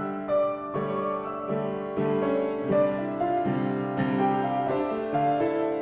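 Upright piano playing a song accompaniment of sustained chords, a new chord struck about every half to one second.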